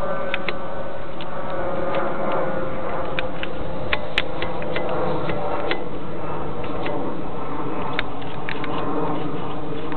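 Electric motor and propeller of a small foam RC plane, heard from a camera riding on the plane: a steady drone with faint held tones, under a rush of wind over the microphone. Scattered sharp clicks through it.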